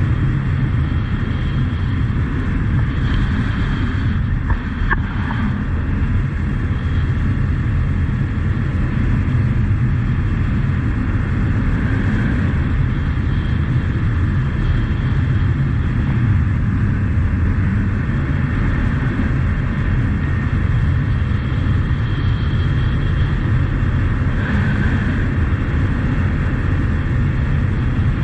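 Honda CT125 Trail's single-cylinder engine running at a steady cruise, mixed with wind rushing over the microphone and tyre noise on a gravel road.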